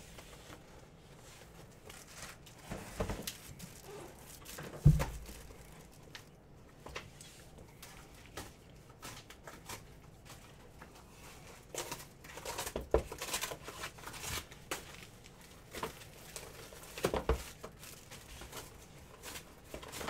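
Cellophane shrink-wrap crinkling and tearing, with cardboard knocks and clicks, as sealed Panini Prizm basketball hobby boxes are unwrapped and opened. One loud low thump about five seconds in.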